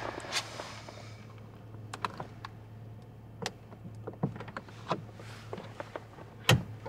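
Quiet car-cabin ambience: a steady low hum with scattered small clicks and rustles, and one louder knock near the end.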